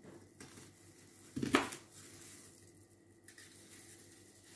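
Faint kitchen handling sounds of onion rings being laid into a dish of marinating chicken, with one short knock of the dish about a second and a half in.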